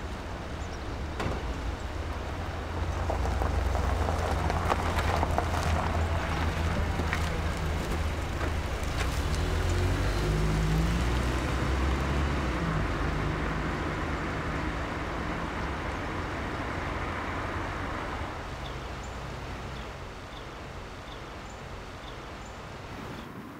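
A car's engine and tyres on the road as it drives off. The sound builds over the first few seconds, holds, then fades steadily over the second half as the car moves away.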